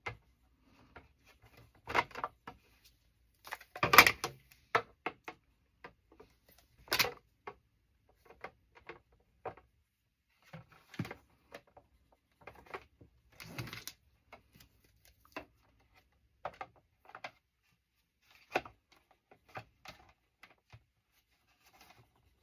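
Dividers being pushed and worked into the slots of an acrylic divided tray, a tight fit: irregular clicks, knocks and scrapes, the loudest about 4 and 7 seconds in.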